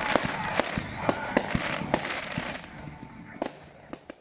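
Fireworks going off in a rapid series of bangs and crackles, thinning out to a few scattered pops after about two and a half seconds, then cutting off suddenly.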